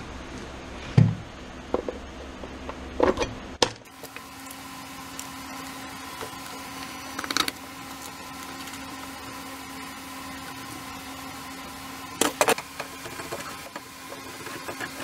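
Steel barn-door hardware being handled and fitted to a wooden cabinet door: bolts, washers and a flat steel strap knocking and clinking on the wood, a few sharp knocks spread apart with a close double knock near the end.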